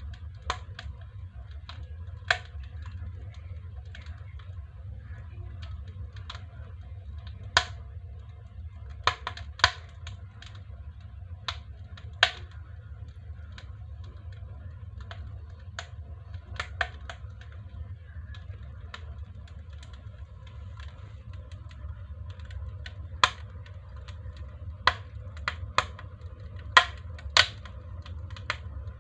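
Wood burning in a stove-fireplace, crackling with irregular sharp pops and snaps over a steady low hum.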